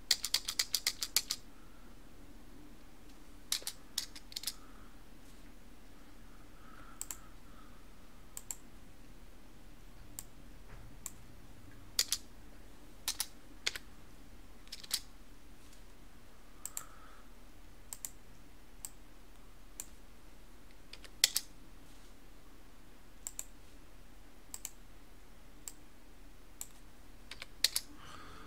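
Computer keyboard typing: a quick run of keystrokes at the start, then scattered single clicks every second or two, with a faint steady hum underneath.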